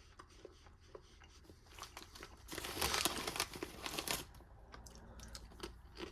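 Plastic ration food pouch crinkling as it is handled, with scattered small rustles and one louder stretch of crackling for about a second and a half near the middle.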